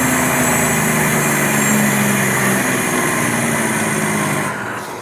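Detroit Diesel Series 60 inline-six diesel running in a loaded truck, with a steady engine hum under a loud turbocharger hiss and a thin high whistle. About four and a half seconds in, the hiss and whistle drop off sharply and the sound gets quieter.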